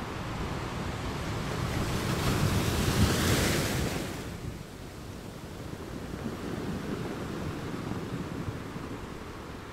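Small waves washing onto a sandy beach, with wind blowing across the microphone. The noise swells to its loudest about three seconds in, then drops back to a steadier wash.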